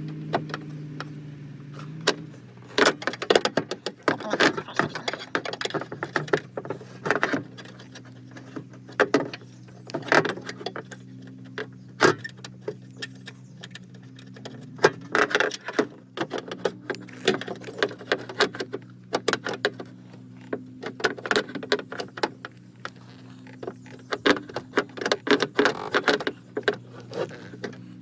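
Irregular metallic clinking and rattling as a power-window regulator and motor assembly is worked into place inside a Mustang door and its bolts loosened, over a steady low hum.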